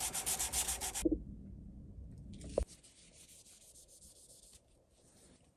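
Sandpaper rubbed quickly back and forth over a metal part of a height gauge, about seven strokes a second, stopping about a second in. A single sharp knock follows a moment later, then it goes quiet.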